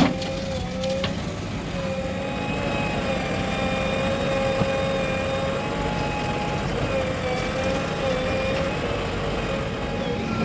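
Heavy diesel earthmoving machinery running steadily: a low engine rumble with a steady whine that wavers slightly in pitch, and a brief knock about halfway through.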